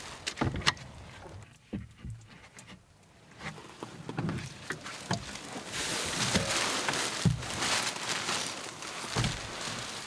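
Footsteps and knocks on the wooden steps and floor of a hide, then from about six seconds in, continuous rustling of plastic bags and clothing broken by a few dull thumps.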